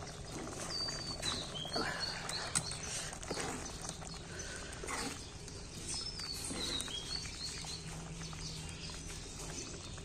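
Quiet background with birds giving short falling chirps several times, and a few faint knocks.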